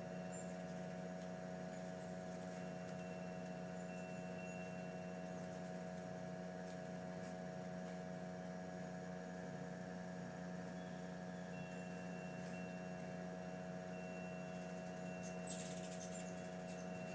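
Steady mechanical hum with several even overtones. A faint thin high tone comes and goes over it, with a few tiny high chirps near the start and a brief high hiss near the end.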